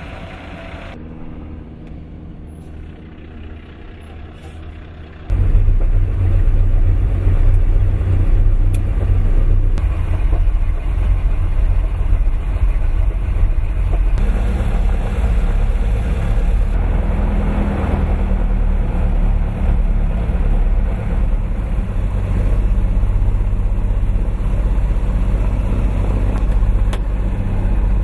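A de Havilland Dragon Rapide's twin inline six-cylinder piston engines heard from inside the cabin while taxiing: a loud, steady, deep drone that starts suddenly about five seconds in. Before that there is only a quieter, steady low hum of ramp ambience.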